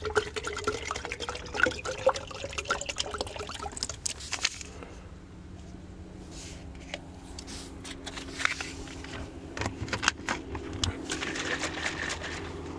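Water poured from an insulated bottle into a plastic wide-mouth water bottle, gurgling as it fills over the first few seconds. This is followed by handling clicks and a faint steady low hum.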